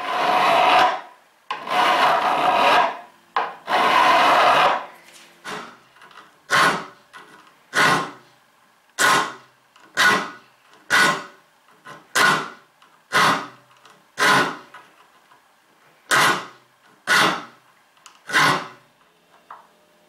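A hand file rasping across the steel teeth of an old Sorby dovetail saw held in a wooden saw vice, resharpening the teeth. Three longer strokes come first, then a dozen or so short, even strokes about once a second.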